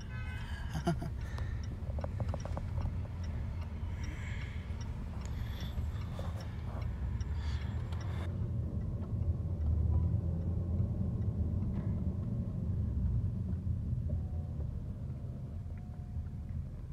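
Steady low rumble of a car driving slowly, heard from inside the cabin, with a few faint clicks in the first half.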